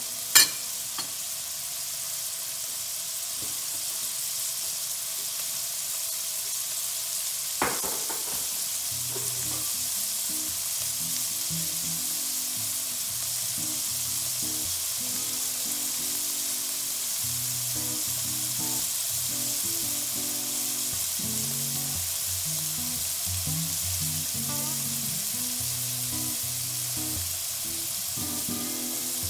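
Diced carrots sizzling in oil in a stainless steel frying pan: a steady, even hiss. A sharp click comes just after the start and a smaller one about eight seconds in.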